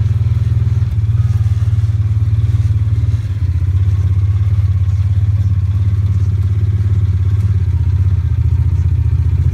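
John Deere Gator XUV 625i side-by-side's three-cylinder gasoline engine running steadily as the vehicle drives along, heard from the driver's seat. A brief dip a little over three seconds in, after which the drone settles a little lower in pitch.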